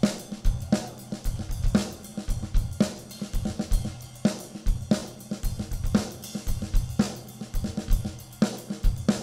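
Jazz drum kit playing a groove with snare, hi-hat, cymbals and bass drum, the sharp strokes standing out over a low bass line.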